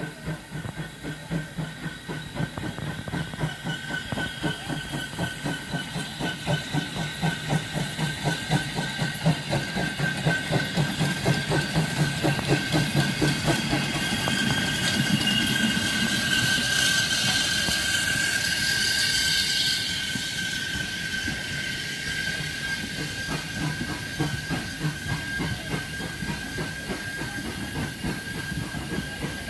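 Steam locomotive working past with a steady rhythm of exhaust beats that grows louder, then a loud hiss of steam as it goes by. Passenger coaches then roll past, their wheels clicking over the rail joints, with a steady high whine running underneath.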